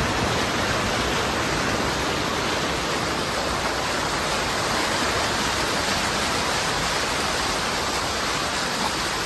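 Steady rushing splash of floodwater thrown up by the front tyre of a Toyota Fortuner SUV driving through a flooded street.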